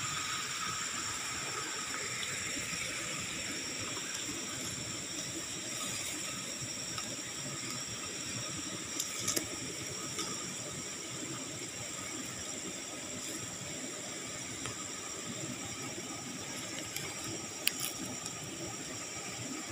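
Steady chorus of night insects, a continuous high-pitched hiss with several held tones, with a few faint clicks about nine seconds in and near the end.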